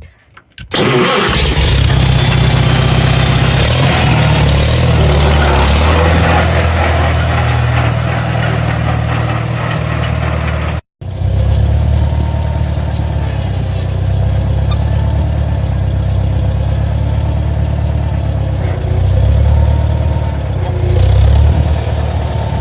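International 140 tractor's four-cylinder gasoline engine running steadily, with a slight rise in speed near the end.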